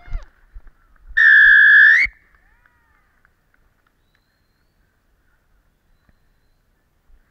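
Referee's whistle: one loud, steady blast of about a second, starting about a second in and lifting slightly in pitch as it ends. A few soft thumps come just before it.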